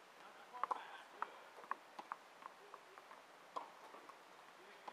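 Tennis balls struck by rackets and bouncing on a hard court: about a dozen sharp, separate pocks, some in quick pairs.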